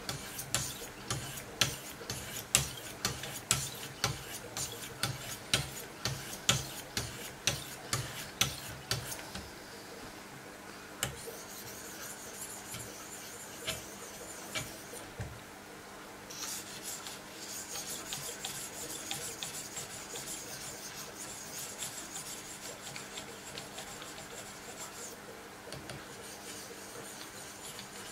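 Wicked Edge diamond sharpening stones scraping along the edge of an M390 steel knife blade in regular strokes, about two a second, for the first nine seconds. After a quieter stretch with a few clicks, a lighter, steadier scraping with a bright hiss comes in about sixteen seconds in.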